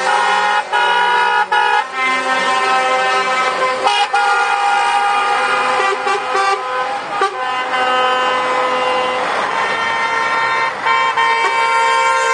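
Lorry horns sounding in long, loud, overlapping blasts as the trucks pass, the pitch changing a few times as one horn gives way to another, over running diesel engines.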